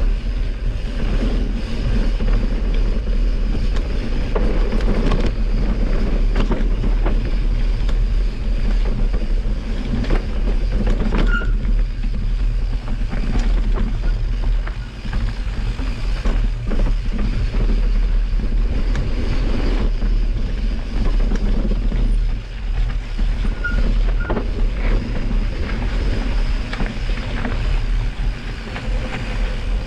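Mountain bike being ridden down a rough dirt trail: a steady low rumble of wind on the microphone, with the tyres rolling over dirt and rock and the bike rattling and knocking over the bumps.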